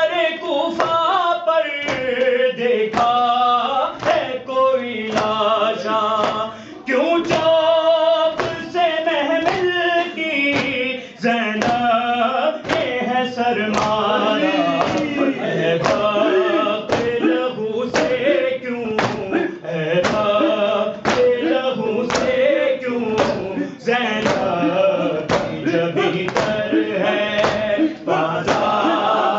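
Noha, an Urdu mourning elegy, chanted by voices in a slow, wailing melody. It is kept in time by a steady beat of hand strikes, about three every two seconds, as in matam, the chest-beating that goes with a noha.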